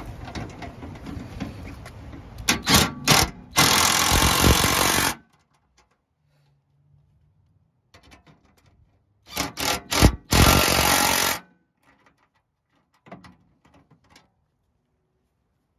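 Cordless power driver with a socket extension running fender flare bolts in, in two rounds: each is a few short trigger blips followed by a steady run of about a second and a half, the first about two and a half seconds in, the second about nine seconds in. Wind noise on the microphone at the start.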